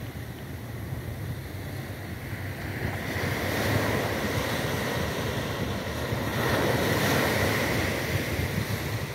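Small waves breaking and washing up a sandy beach, swelling louder twice as waves come in, with wind rumbling on the microphone.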